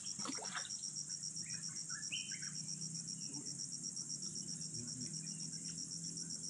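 Insects chirping steadily in a fast, even pulse of about seven a second, with a few short bird chirps about two seconds in.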